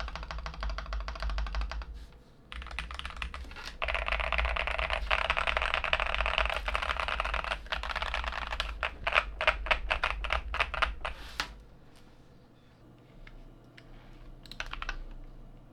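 Mechanical keyboard with lubed Boba U4T tactile switches on an aluminium plate (Ikki68 R1) being typed on in fast continuous runs of keystrokes. The typing stops about 11 seconds in, followed by a few isolated key presses near the end.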